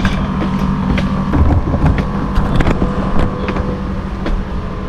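Steady hum of air-conditioner outdoor units, with wind rumbling on the microphone. Scattered footsteps clank on metal stair treads throughout.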